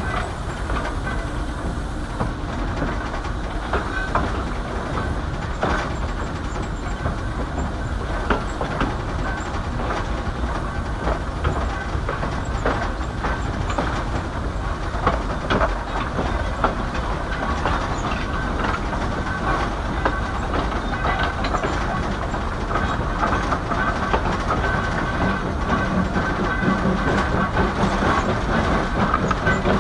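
Small 0-4-0T saddle-tank steam locomotive and its coaches running along the track: a steady rumble with scattered clicks of wheels over rail joints, growing louder over the last few seconds.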